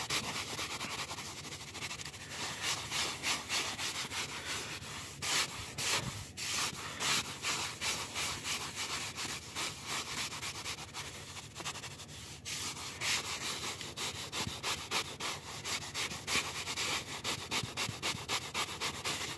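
A 6-inch leather and vinyl cleaning brush scrubbing seat-back upholstery in quick back-and-forth strokes, a continuous scratchy brushing.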